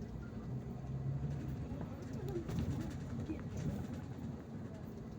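Interior noise of a Volgabus-5270.G2 natural-gas (CNG) city bus under way: a steady low rumble of engine and road, with some faint wavering sounds about halfway through.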